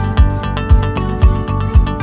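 Background music with a steady beat: a low kick drum about twice a second under plucked, sustained notes.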